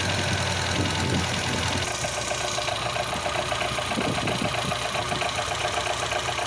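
Volvo B20 four-cylinder engine idling with a rapid, even clatter that comes in about two seconds in, sounding like a clapped-out diesel. This is the typical noise of a worn fiber timing gear.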